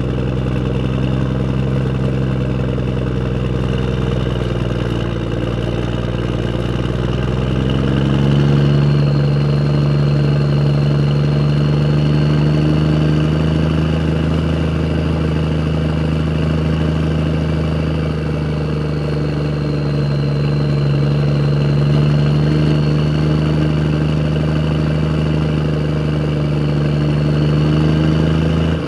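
Tractor engine running steadily as the tractor drives along a road. About eight seconds in the engine note rises and then holds at the higher speed, with a faint high whine.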